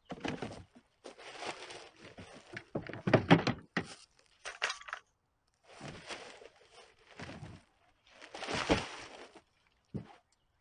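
Black plastic trash bag rustling and crinkling in irregular bursts as it is handled and lifted out of a plastic kayak's cockpit, with a few thumps.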